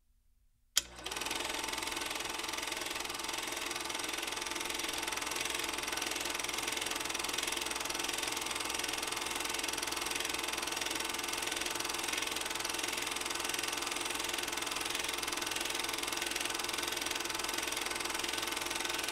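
Old film projector sound effect: a sharp click about a second in, then a steady mechanical running noise with hiss.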